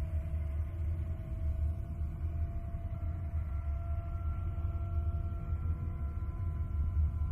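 A space-sound drone: a deep steady low rumble under several held tones that slowly fade in and out, one higher tone entering about three seconds in.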